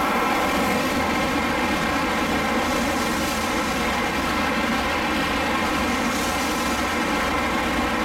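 N700-series Shinkansen train running through the station at speed without stopping: a loud, steady rush of wheels on rail and air as the cars pass close by.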